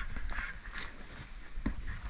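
Footsteps on a rocky trail: irregular scuffs and knocks of boots on rock and leaf litter, with a heavier thump at the start.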